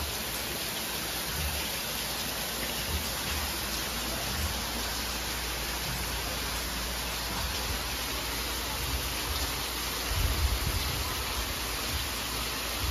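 Heavy rain falling steadily on clay roof tiles, a dense, even hiss, with a few low rumbles about ten seconds in.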